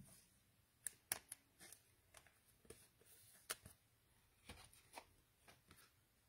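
Faint, irregular clicks and light rustling of trading cards being handled, about a dozen small snaps spread unevenly.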